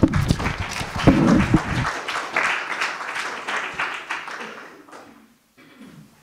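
Audience applauding, fading out after about five seconds.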